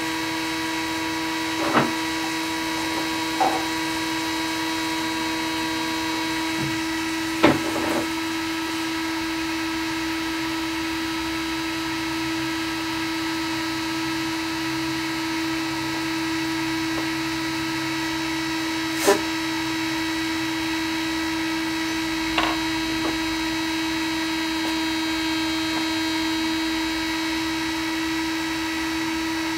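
Home-built 3D printer standing still under power, its fans and motors giving a steady hum and whine, with a few sharp clicks scattered through.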